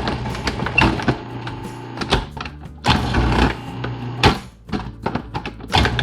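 Electric food processor motor running steadily while raw potatoes are sliced. It grows louder in three rough surges as the potatoes are fed against the blade.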